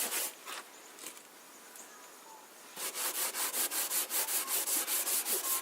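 00 steel wool rubbing boiled linseed oil into the wooden cabinet of a treadle sewing machine. After a quiet pause with a few light strokes, quick back-and-forth scrubbing strokes start about three seconds in, about five a second.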